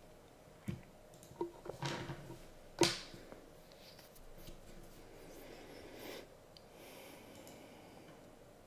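A few short clicks and knocks in a quiet small room, the loudest about three seconds in, over faint steady room noise.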